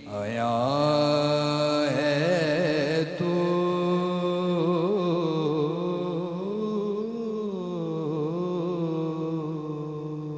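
A young man singing an Urdu hamd, a hymn praising God, alone. He draws out long held notes with wavering ornaments.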